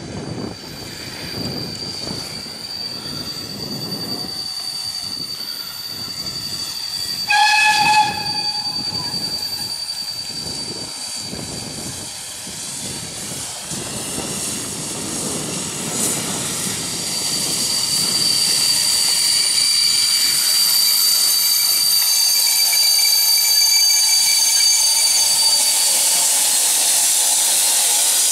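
PKP class Ol49 steam locomotive drawing a passenger train into a station: a steady beat of exhaust chuffs, then a short blast of its steam whistle about seven seconds in. In the second half, a louder steady hiss of steam with a high metallic squeal as the train comes in.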